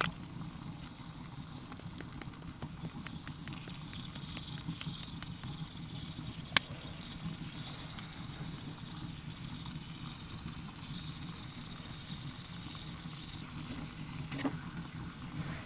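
Bacon and mushrooms frying in a cast-iron pan on a wood stove: a steady sizzle with many small crackling pops, thickest in the first six seconds, and one sharp click about six and a half seconds in.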